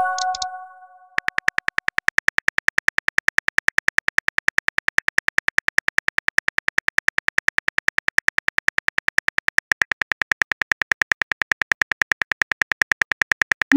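Simulated phone keyboard typing clicks, a rapid even stream of ticks, as a text message is typed out. A short chime sounds at the start as the previous message bubble posts, and a quick rising swoosh comes right at the end.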